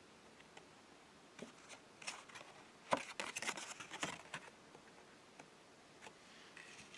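Fingers handling a stiff paper promo card as it is flipped over, a cluster of small clicks and rustles, the loudest about three seconds in, with a little more rustling near the end.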